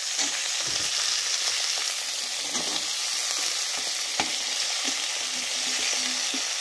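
Sticks of beetroot, carrot and potato sizzling steadily as they go into hot oil in a metal kadai, with a few sharp metal clicks as they are scraped in from a bowl with a spatula.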